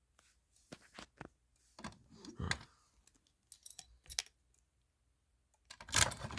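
Handling noise: scattered light clicks and rattles, like keys jangling, with a louder cluster about six seconds in.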